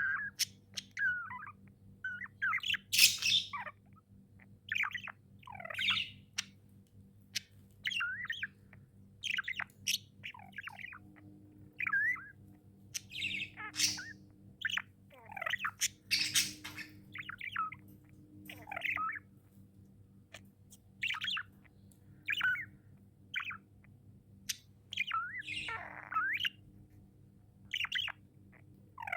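Pet budgerigars (budgies) chirping and squawking in short, frequent bursts, over a steady low hum.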